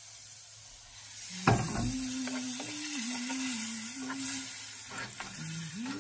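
Shrimp and sausage gravy sizzling in a hot skillet while being stirred, with one sharp knock against the pan about a second and a half in. A low humming tone that moves between a few pitches runs through much of it.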